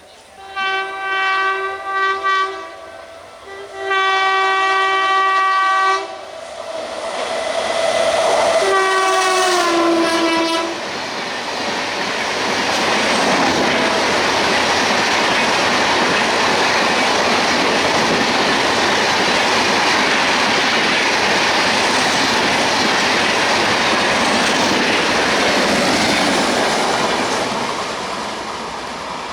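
A WAP-7 electric locomotive's horn sounds a few short blasts and then a long one. A last blast drops in pitch as the locomotive passes. The Rajdhani Express's LHB coaches then rush past at speed with a steady rumble and wheel clatter that eases slightly near the end.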